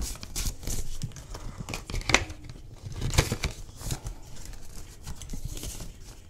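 Paper banknotes rustling and a clear plastic cash envelope crinkling as hands handle bills and open a budget binder's ring pocket, in irregular short rustles with the sharpest about two and three seconds in.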